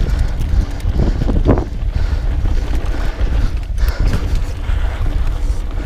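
Wind buffeting the microphone over the rattle and clatter of a mountain bike riding downhill on a dirt singletrack, with many small knocks from the bumps in the trail.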